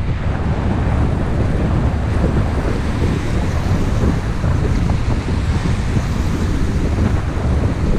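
Steady, loud wind buffeting the GoPro's microphone as it moves along on the bicycle, mixed with the hiss of tyres on the wet road.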